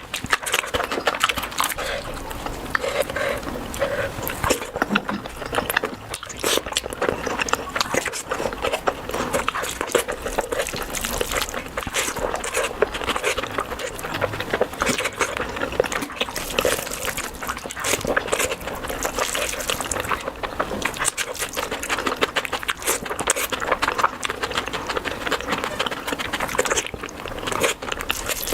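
Wet chewing and lip-smacking of a person eating curry and rice, a dense, unbroken stream of small clicks and squelches.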